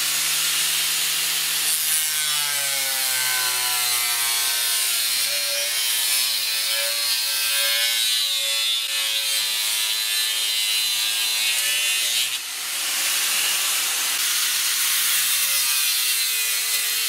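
Angle grinder running with a disc cut from cardboard, its spinning edge rubbing into a wooden bar and cutting by friction. It gives a steady motor whine over a rasping hiss, dips briefly about twelve seconds in, then picks up again.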